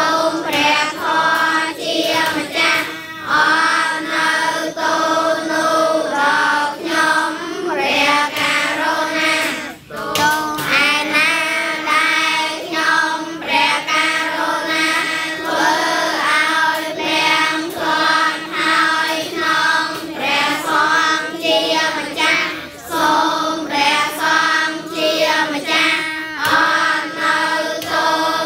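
A large group of children chanting Buddhist prayers in unison on a near-steady tone, syllable by syllable in an even rhythm, led by a girl's voice through a microphone, with a brief breath pause about ten seconds in.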